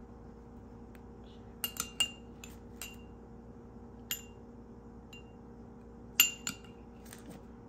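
Metal spoon clinking against a small ceramic bowl while scooping sauce: a string of short, ringing clinks at irregular intervals, the loudest about six seconds in.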